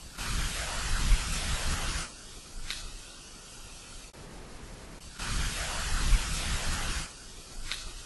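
Two loud bursts of hiss and static from an amplified audio recording, each about two seconds long and each followed by a short click. This is the recorder noise in which the investigators claim to hear a voice saying "Yeah, motherfucker" (an EVP).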